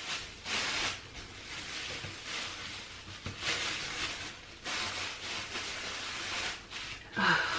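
Thin plastic shower cap crinkling and rustling in irregular spurts as it is pulled on and tucked in around the hair with both hands. A short vocal sound comes near the end.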